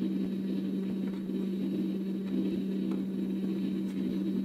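Hot air rework station's blower running steadily, a constant low hum with one strong steady tone, as it heats the laptop's panel adhesive.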